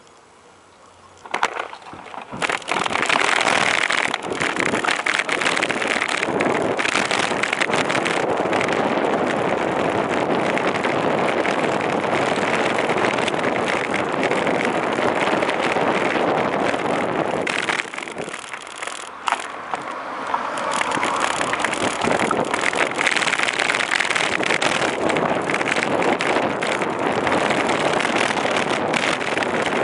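Wind rushing over the microphone and the rattle and road noise of a camera riding on a moving bicycle, starting about a second and a half in as the ride gets under way. It eases off for a few seconds past the middle, then picks up again.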